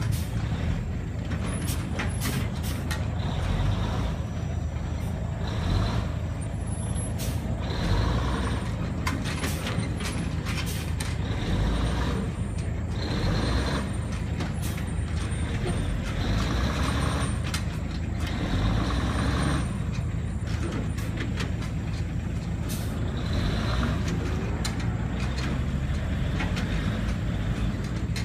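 A five-ton truck's engine running with a steady low rumble as the truck drives off-road, its sound swelling every couple of seconds, with many sharp knocks and rattles.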